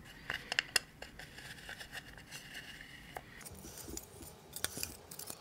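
Scattered light clicks and clinks of a long hex key turning M5 machine screws in a 3D-printed PLA gantry plate, with small metal parts knocking together.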